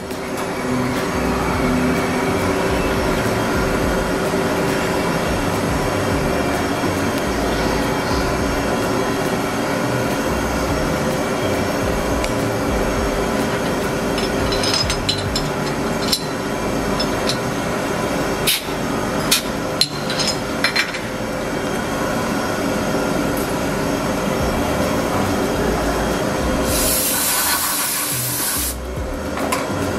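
CNC engraving and milling machines running with a steady mechanical hum, with scattered sharp clicks and taps midway. Near the end, a handheld compressed-air blow gun hisses for about two seconds as it blows off the machined mould blocks clamped in their fixtures.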